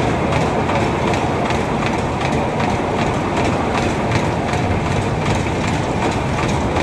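Cars of a circular-track carnival ride running at speed, a steady loud rumble of wheels on the rails with a fast, even clatter running through it.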